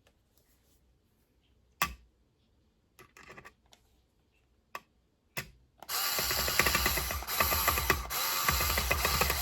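A Hyper Tough screw gun driving a screw home, running in two spells of about two seconds each with a short break between, after a few light clicks of parts being handled.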